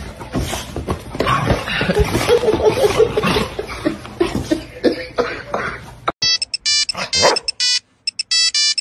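A dog making playful noises while wrestling with a person under a quilt, with rustling and movement. About six seconds in, this changes abruptly to an electronic, ringtone-like melody of short beeping notes.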